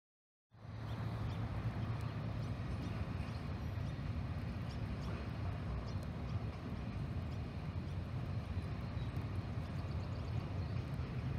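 EMD SW1200RS diesel switcher locomotive running at a distance with a steady low drone from its diesel engine, a light rattle of clicks over it. The sound cuts in suddenly about half a second in.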